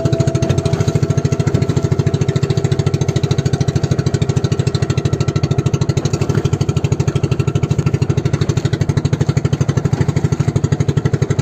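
Engine of a motorized outrigger boat running steadily under way, a loud, rapid, even beat.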